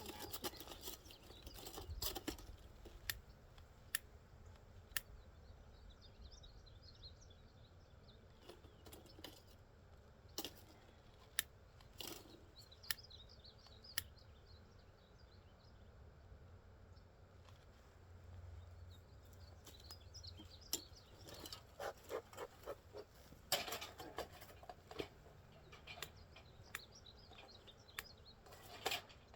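Scattered sharp clicks and short bursts of crackly rustling from close handling, busiest about two-thirds of the way in and again near the end. Faint high chirping runs behind it throughout.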